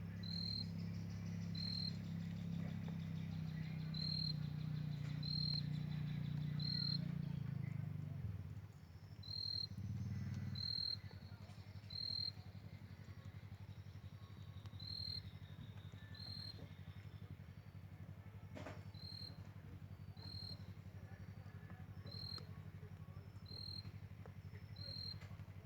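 Insect chirping: a short, high chirp repeating about once every second or so, over a steady low hum that drops in level about a third of the way in.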